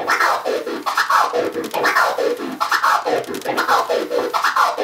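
Turntable scratching: a vinyl record sample is pushed forward and pulled back by hand while the mixer's crossfader is clicked four times on each stroke. This is a 4-click orbit, which cuts every forward and backward pass into five chopped sounds. The pitch sweeps up and down in a steady run of about two strokes a second.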